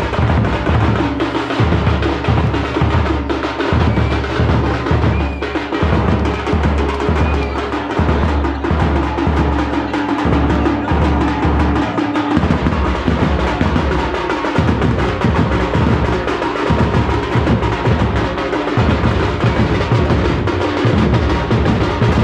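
A troupe of frame drums beaten in a fast, loud, driving rhythm. The beat pattern shifts about twelve seconds in.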